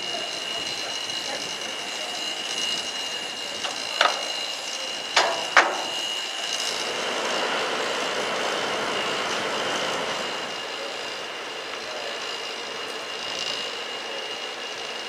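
Steam locomotive standing in steam, hissing steadily with a thin constant high whine. Three sharp knocks come in the middle, and the hiss swells for a few seconds after them.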